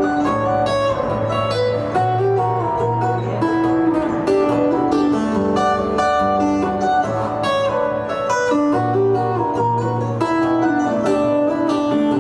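Acoustic guitar playing an instrumental piece: a steady flow of ringing plucked notes over repeating held bass notes.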